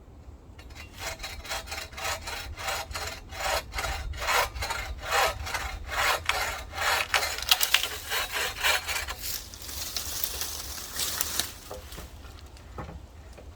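Hand saw cutting through wood in quick back-and-forth strokes, about three a second. It turns to a steadier rasp and stops about three-quarters of the way in.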